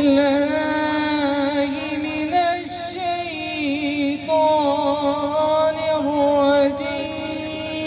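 Background music: a chanted, sung vocal melody with long wavering held notes over a steady low pulse.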